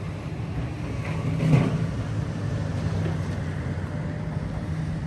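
Diesel engine of heavy demolition equipment running steadily, with one brief louder noise about one and a half seconds in.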